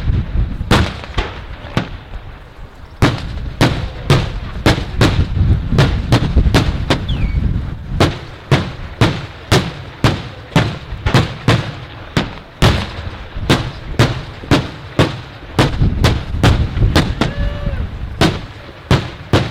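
Daytime fireworks going off in a rapid, unbroken string of sharp bangs, about two or three a second, over a low rumble.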